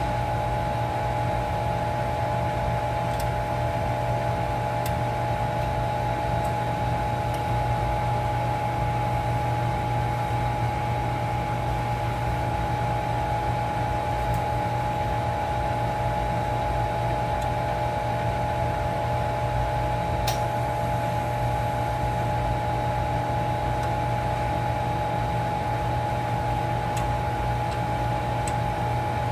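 Steady machinery drone with several held humming tones, from equipment running in a ship's machinery space. A few faint metallic clicks come from brass valve fittings on a refrigeration compressor being handled.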